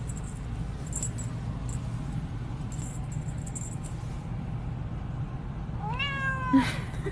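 A domestic cat gives one meow about six seconds in, rising and then held for under a second, over a steady low hum.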